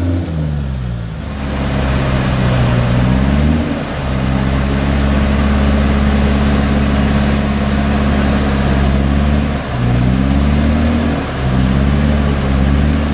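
Off-road 4x4 engine under load in deep mud while the vehicle is winched up a slope, revs climbing, then held high and steady, dipping briefly twice near the end.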